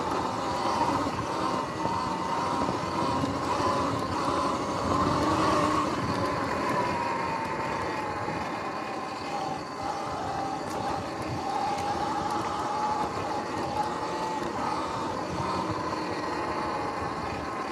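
Sur-Ron X electric dirt bike being ridden: its motor whines, the pitch rising and falling as the speed changes, over a steady rushing noise.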